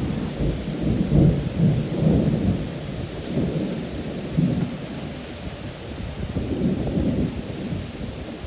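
Strong storm wind gusting and buffeting the microphone in uneven low rumbles, over a steady hiss.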